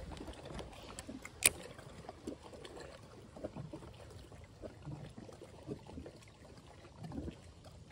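Water lapping softly and irregularly against a plastic kayak hull, with a single sharp click about a second and a half in.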